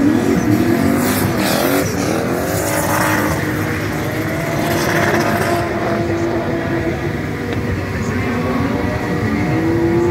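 Drift car engine revving, its pitch rising and falling again and again as the car slides with its rear tyres spinning, over a hiss of tyre noise; the high hiss drops away about halfway through.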